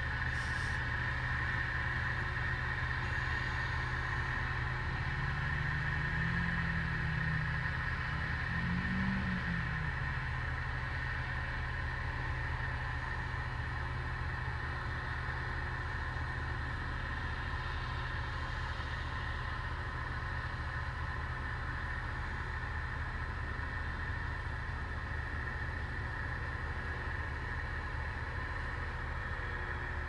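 An engine running with a steady low hum and a steady high whine above it; the pitch of the hum rises briefly about five seconds in and again around nine seconds.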